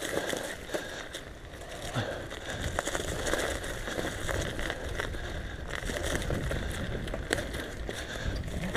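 Mountain bike riding along a dry dirt trail: tyres on dirt and twigs, with frequent clicks and rattles.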